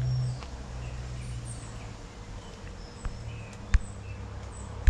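Short, scattered bird chirps over a steady low hum, with two sharp clicks in the second half, the first of them the loudest sound.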